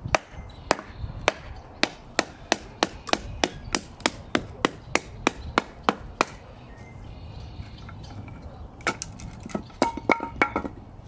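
Batoning: a Mora Companion Heavy Duty knife driven down through a piece of firewood by repeated strikes of a baton on its spine, splitting it down the middle. A steady run of sharp knocks, about three a second, stops about six seconds in, then a quicker cluster of knocks comes near the end.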